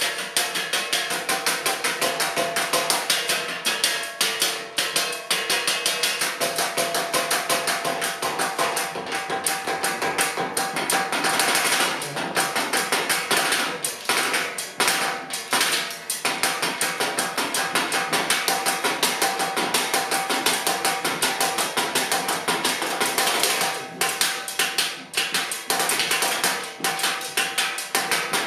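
Wooden café table played as a percussion instrument with drumsticks and mallets: a fast, dense run of wooden knocks and clicks from two players, with a few short breaks.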